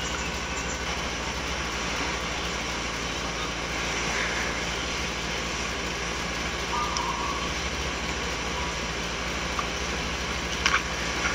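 Steady background hiss with a faint low hum, unchanging throughout, and a short faint tone about seven seconds in.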